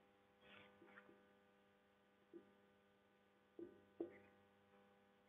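Near silence over a faint steady electrical hum, with a few faint short taps and scrapes of a marker writing on a whiteboard, the clearest one about four seconds in.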